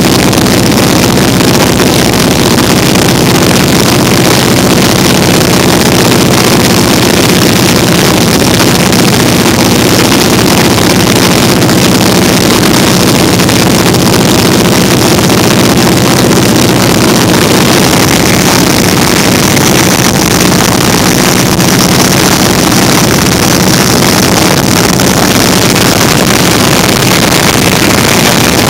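Vintage open-cockpit biplane's engine and propeller running steadily in cruise flight, with heavy wind rush over the open cockpit buffeting the microphone.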